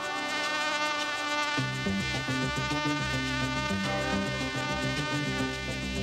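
A steady buzzing drone like an insect's wings in flight, with lower notes that change in steps joining about one and a half seconds in.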